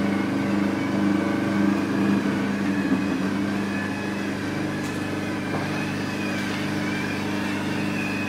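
NUBWAY Velashape vacuum body-contouring machine running with a steady mechanical hum from its vacuum pump, easing slightly in level about four seconds in.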